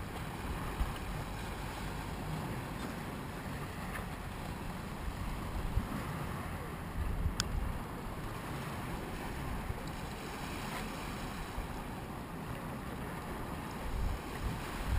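Wind buffeting the camera's microphone in irregular low gusts over a steady hiss of wind and light surf, with one sharp click about seven seconds in.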